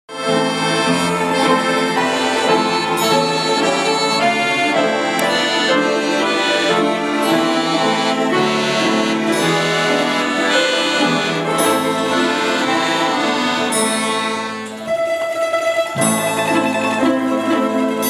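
Orchestral music with sustained reedy chords and plucked and bowed strings. It starts suddenly, eases off briefly about three-quarters of the way through, then resumes.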